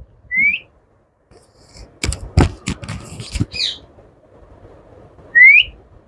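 Indian ringneck parrot giving a short upward-sliding whistle, faintly near the start and loudly near the end. In between comes a quick run of sharp clicks and a brief squawk.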